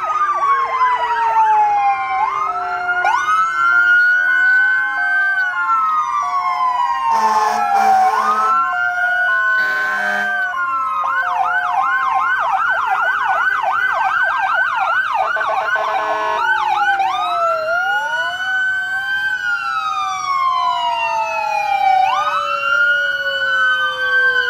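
Several emergency-vehicle sirens from police cars and fire engines sounding at once: overlapping slow rising-and-falling wails, a fast yelp from about ten to seventeen seconds in, and a two-note hi-lo pattern underneath. Two short horn blasts cut in about seven and ten seconds in.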